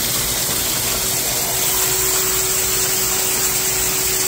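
Machine-tool chip-wash coolant lines running continuously: coolant gushing from the washdown nozzle and flushing metal chips down the trough, over a steady pump hum.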